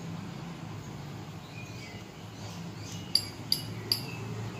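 A metal fork clinks three times against a plate as noodles are twirled, each clink sharp with a short ringing, over a steady low background hum.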